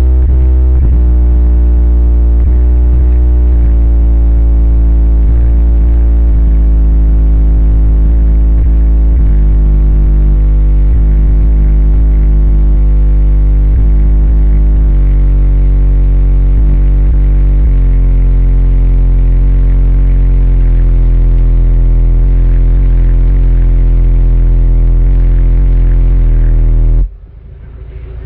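Car sound system in a third-generation Volkswagen Golf GTI playing bass-heavy music very loudly, the deep bass dominating; it cuts off suddenly near the end.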